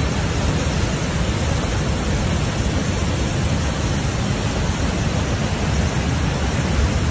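Flash-flood water rushing through a street as a fast, muddy torrent, making a loud, steady rushing noise heaviest in the low end, without letup.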